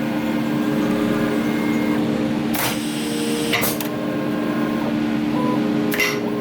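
CNC router with an automatic tool changer running through a tool change: a steady motor whine with tones that shift as the axes move, broken by three short bursts of hiss from the pneumatic tool release, about two and a half, three and a half and six seconds in.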